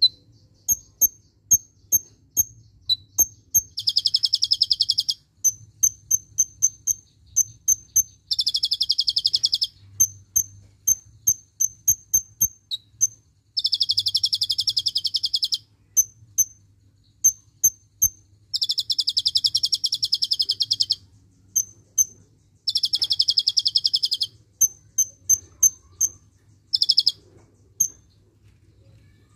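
Caged kolibri ninja (Van Hasselt's sunbird) singing: sharp high chirps repeated two to three times a second, broken every few seconds by a rapid trill lasting one to two seconds. Six such trills come in all, the last one short. The trills are the cililin-style 'tembakan' taught into its song.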